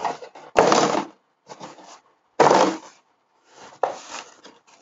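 Tissue paper and a cardboard gift box being handled as a silicone breast form is laid back into its wrapping: a sharp click less than a second in, then two loud rustles, the second about halfway through, with lighter rustling between.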